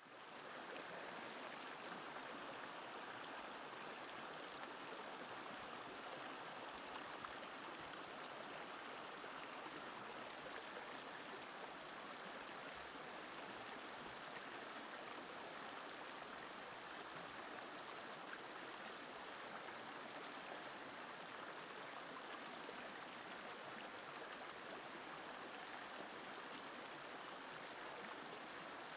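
Shallow stream running over rocks: a steady rush of water that fades in at the start.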